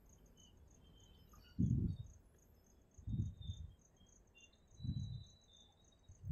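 Crickets chirping steadily at a high pitch. Under them, dull low thuds come about every second and a half, one of them a quick double, as the passenger coaches' wheels cross rail joints while the train moves off.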